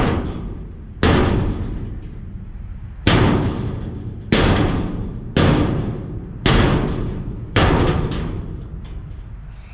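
Seven heavy blows on the corrugated steel wall of a shipping container, roughly a second apart with a longer gap after the second, each booming and ringing out slowly.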